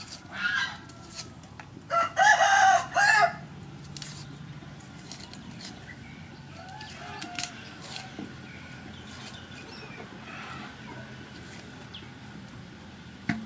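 A rooster crowing: one loud crow in several drawn-out parts about two seconds in, with a shorter call just before it and a fainter call later. A few faint clicks come over a steady outdoor background.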